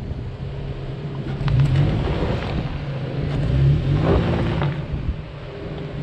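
A motor vehicle running with a steady low engine hum, over noise that swells twice, with a few light knocks.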